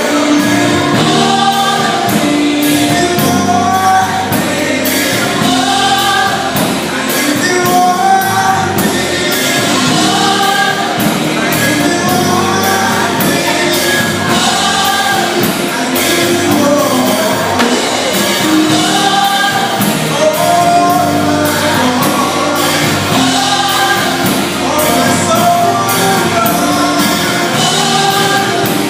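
Live gospel band and singers performing a worship song, with sung vocals over a full band with drums.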